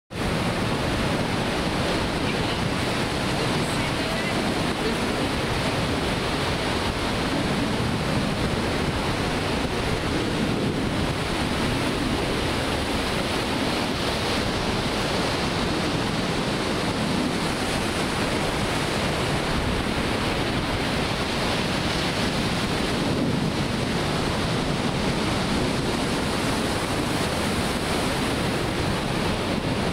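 Ocean surf breaking and washing up a sandy beach: a steady, continuous rush of whitewater with no single crash standing out.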